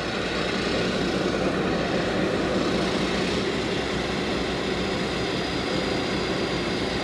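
An engine running at a steady, unchanging drone.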